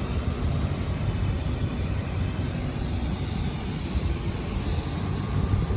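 Outdoor air-conditioner condenser units running, their fans making a steady rushing drone.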